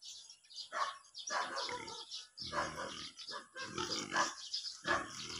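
An animal's short, rough calls, repeated several times, louder and deeper in the second half.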